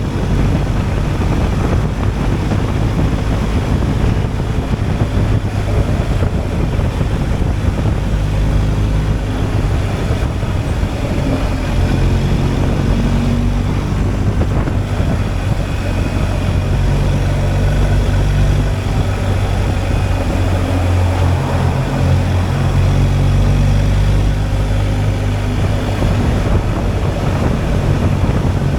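BMW R 1250 GS Adventure's boxer twin engine running while riding, a steady note whose pitch shifts a little now and then, with wind noise over it.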